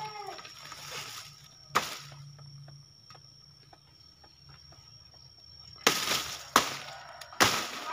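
A blade chopping into a banana plant's soft stem: one sharp blow about two seconds in, then three more near the end, each followed by a brief rustle.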